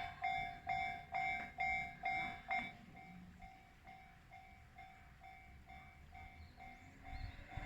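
Japanese level-crossing warning bell ringing, an electronic ding repeating about twice a second. It is loud for the first few seconds, then carries on more softly at the same pace, with a low rumble coming up near the end.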